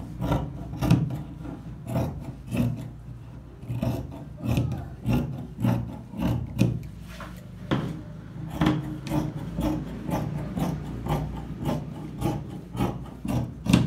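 Fabric scissors snipping through cotton tricoline, the blades rasping as they close, about two cuts a second with a short pause about three seconds in.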